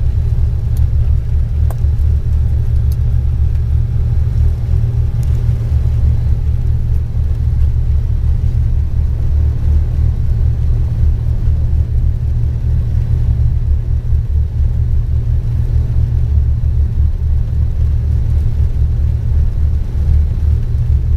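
Piston engines of a Cessna 402 twin running steadily, heard inside the cockpit as a loud, even, deep drone that neither rises nor falls.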